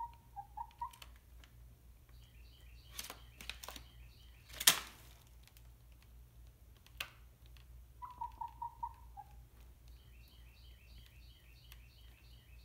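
A chicken clucking in short runs of quick notes, a few at the start and about five in a row about 8 seconds in. A sharp knock about halfway through is the loudest sound, with a few lighter clicks around it, and fainter, higher chirps come in quick repeated runs in between.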